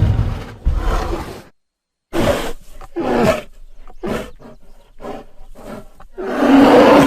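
Custom Vastatosaurus rex dinosaur sound effects: a loud roar trails off and is cut to dead silence, then a run of short growls follows, and a loud, long roar starts about six seconds in.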